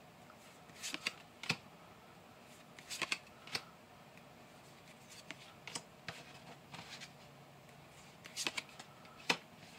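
Pokémon trading cards being flipped through one at a time in the hands: irregular soft clicks and slides of card against card.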